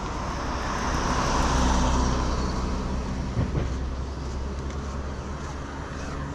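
A road vehicle driving past, its tyre and engine noise swelling to a peak about two seconds in and then fading, over a steady low engine hum.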